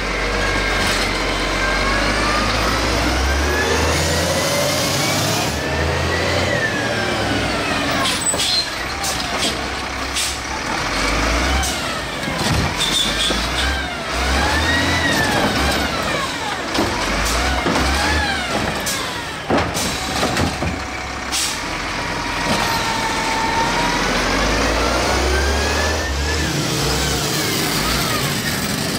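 Refuse truck's engine revved up and down repeatedly in neutral, its pitch rising and falling with each rev over a steady low rumble.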